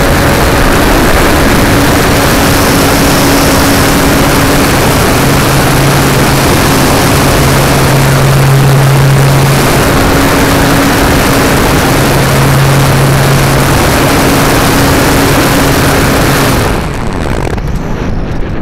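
Electric motor and propeller of a Radian powered glider running under power, heard from a camera mounted on the plane: loud, steady noise with a low hum that comes and goes. Near the end the motor cuts off and the sound drops to wind rushing past the gliding airframe.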